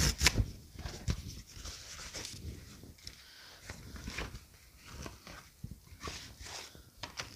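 A cardboard mailer being opened by hand: a quick rip of its tear strip at the start, then irregular rustling and scraping of cardboard and paper as it is handled.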